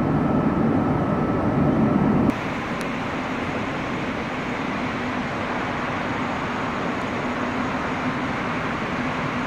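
Steady rumble and hum of a station train hall as a TGV high-speed train rolls slowly along the platform. The level drops abruptly about two seconds in, leaving an even, lower hum.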